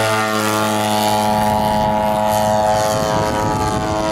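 Hangar 9 Beast giant-scale RC biplane's 100cc engine and propeller at high throttle, a steady drone on one pitch as the plane climbs out just after takeoff.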